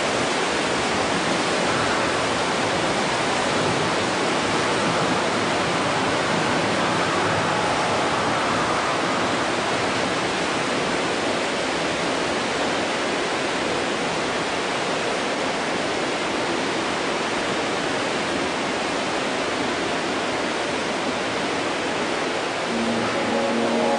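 Swimmers racing in an indoor pool, their splashing a steady, even wash of noise like running water.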